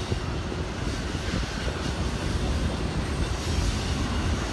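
Diesel-hauled freight trains moving through a rail yard: a steady low rumble of locomotives and rolling freight cars.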